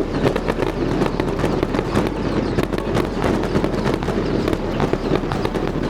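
Fireworks going off: a dense, fast crackle of many sharp pops over a steady low rumble.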